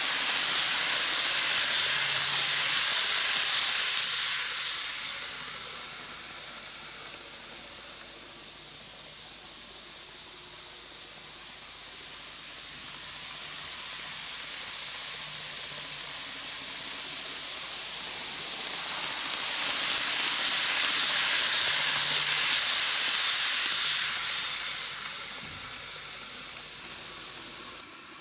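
N-gauge model train (Greenmax Keikyu New 1000 series) running on its track: a steady hiss of wheels and motor on the rails. It is loud as the train passes close at first, fades as it runs away round the loop, then grows loud again around twenty seconds in before fading.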